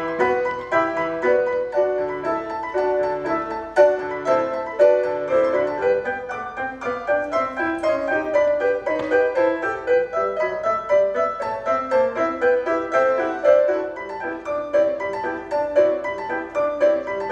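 Grand piano played four hands: a lively piece of quick, short, repeated notes, mostly in the middle and upper register.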